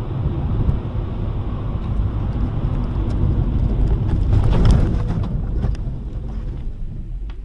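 Car interior on a snowy highway: a loud, steady low rumble of tyres and wind. It swells to its loudest with rattling and knocks around four to five seconds in, as the car loses control and crashes, then eases off.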